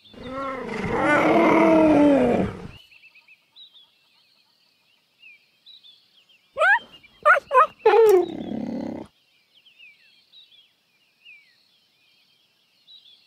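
Cheetah calling: a long wavering call lasting nearly three seconds, then after a pause a quick run of short, sharply rising chirp-like calls about seven seconds in, ending on a lower falling one. Faint high twittering runs behind the calls.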